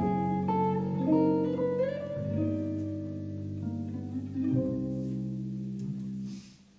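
Live jazz on an amplified hollow-body archtop guitar: a run of single notes climbs, then ringing chords sustain over low notes. The sound dies away almost to silence shortly before the end.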